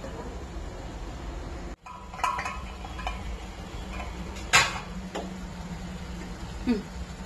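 Perforated steel spatula clinking and scraping against a stainless-steel kadai while stirring potatoes and chickpea greens. There are several clinks with one loud clank a little past halfway, a short falling scrape near the end, and a steady low hum underneath.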